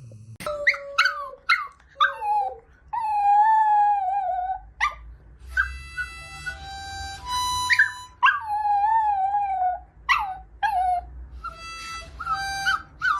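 A dog howling along with a musical instrument: short yipping calls and two longer wavering howls, a few seconds in and about two-thirds through, alternate with steady held notes from the instrument.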